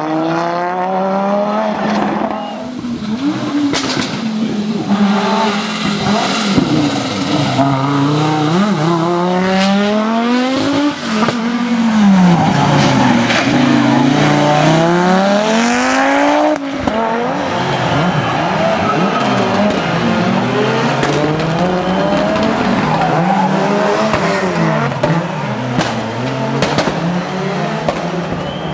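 Audi Sport Quattro S1 E2 rally car's turbocharged five-cylinder engine revving hard, its pitch climbing and dropping again and again as it shifts and lifts, with an abrupt break about 17 seconds in.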